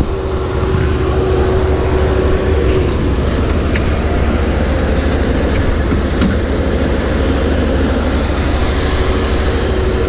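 Skid steer loader engines running steadily while lifting a heavy sleeper bunk off a semi truck: a loud low drone with a steady hum above it.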